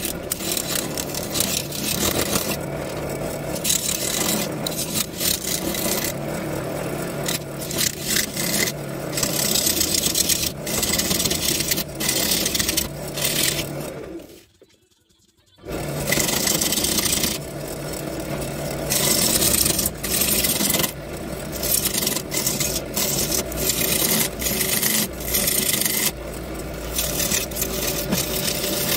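Turning tool cutting a black walnut bowl blank spinning on a wood lathe: rough scraping cuts in rapid, irregular bursts over the lathe motor's steady hum, typical of roughing an uneven blank. The sound drops out for about a second near the middle, then carries on.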